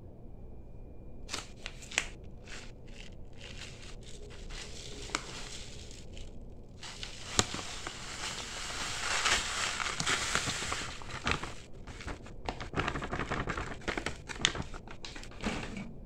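Plastic bag of tapioca crinkling and crackling as it is handled, with tapioca poured from it into a plastic jar in a denser rush of noise between about seven and eleven seconds in.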